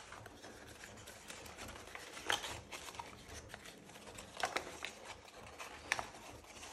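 Folded paper pleats rustling and crackling as hands press and collapse a concertina-folded strip of printer paper, with a few short sharp crackles.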